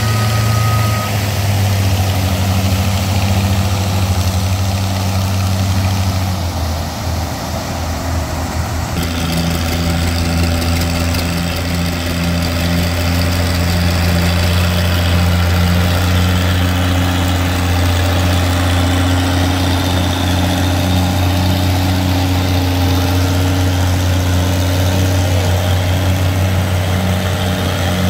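Farm tractor engines running steadily under load while pulling a weight-transfer sled. About nine seconds in the sound changes abruptly to a second engine, an Oliver tractor's, which pulls with a steady beat.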